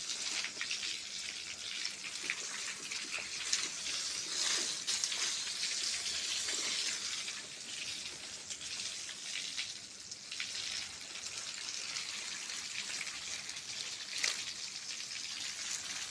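Water hissing and splashing, full of small crackles, swelling about four to seven seconds in, with a sharper click near the end.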